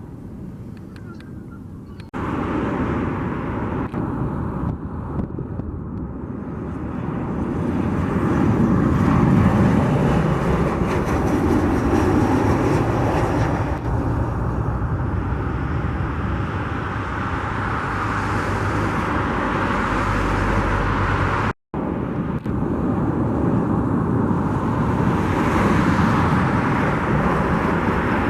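Jet airliner engine roar, a steady heavy rumble that starts abruptly about two seconds in, swells, and holds loud, with a split-second dropout about three-quarters of the way through.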